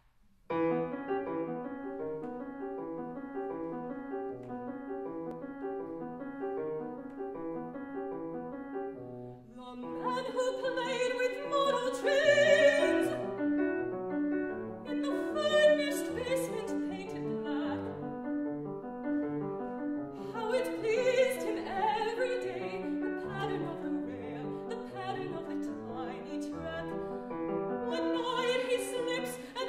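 Steinway grand piano playing a steady repeating figure of notes, joined about ten seconds in by a classically trained mezzo-soprano voice singing with vibrato.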